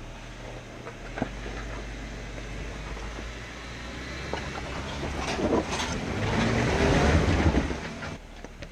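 Jeep Wrangler Rubicon's engine pulling at crawling speed up a rock ledge, growing louder under throttle about five seconds in and easing off near the end, with the tyres scraping over the rock.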